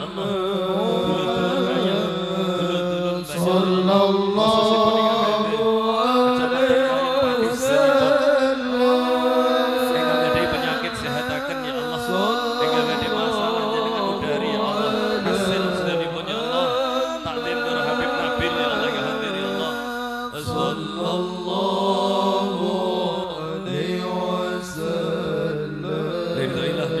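Islamic devotional chanting (sholawat): voices chanting a melody that rises and falls over a steady held low drone.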